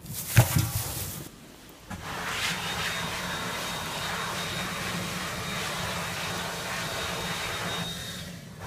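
A plastic bag rustles and drops into a metal rubbish bin with a clatter at the start. About two seconds in, a tap starts running steadily into a ceramic washbasin while hands are rinsed, and it stops just before the end.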